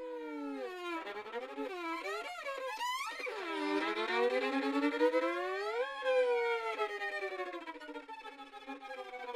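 Film score: a bowed string instrument, violin-like, playing sliding, wavering notes. The pitch swoops up and down several times near the middle, then settles into a held note.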